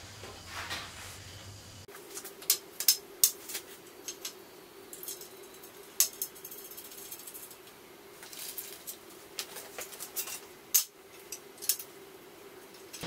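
Scattered metal clinks and knocks as a long aluminum gantry plate is handled and set against steel uprights, over a faint steady hum.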